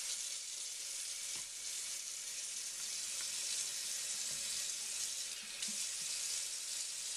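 Kitchen faucet running in a steady stream into the sink, the water splashing over hands being washed under it.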